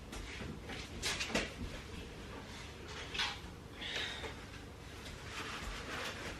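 Several short rustling and scraping sounds as a rag and hands wipe over a dirt bike engine's gasket mating surface, cleaning it for reassembly.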